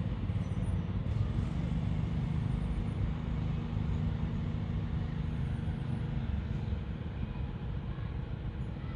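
Steady low rumble of background noise with no distinct event, easing slightly near the end.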